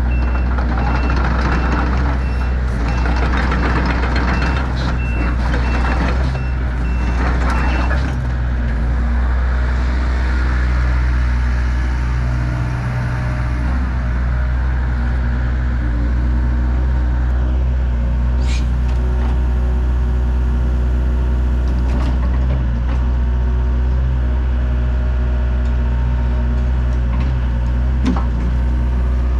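Sumitomo SH80-6B midi excavator's diesel engine running steadily, with its travel alarm beeping at an even pace for about the first eight seconds, which signals that the machine is moving.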